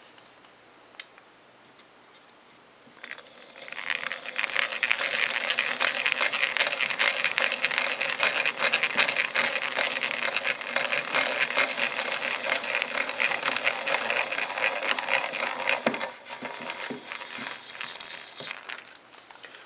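Hand-cranked egg beater drill boring a pilot hole in pine: a fast, steady whirring clatter of the gears and bit that starts a few seconds in, runs for about twelve seconds, then eases off into a few lighter knocks near the end.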